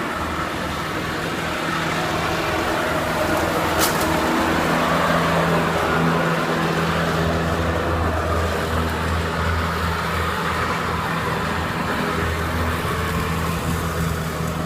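Riding lawnmower's engine running steadily at a constant speed, with one short sharp click about four seconds in.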